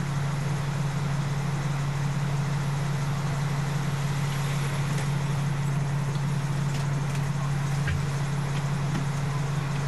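Fire engine's diesel engine running at a steady idle, a constant low hum.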